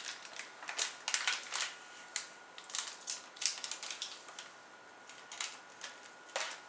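Clear plastic packaging crinkling and clicking in the hands as a hard drive is unwrapped, in irregular sharp crackles, some in quick runs.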